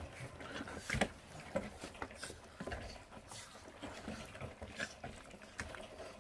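Puppies gnawing and chewing raw meat on the bone, with irregular small crunches and clicks as they tear and crush it; one louder crunch about a second in.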